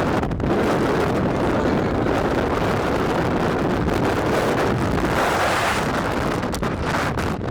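Wind blowing hard on the microphone, a steady rush that swells about five seconds in.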